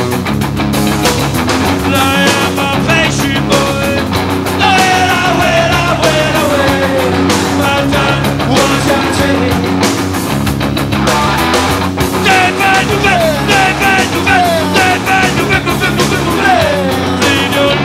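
Punk rock band playing live: driving bass, drums and electric guitars at full volume, with a shouted lead vocal sliding over the top in two stretches.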